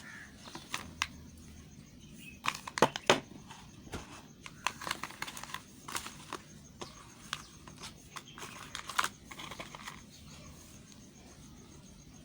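A bar of Lux soap being cut and crumbled, giving crisp crunches and clicks in irregular runs. The loudest crunches come about three seconds in, and they die away about ten seconds in.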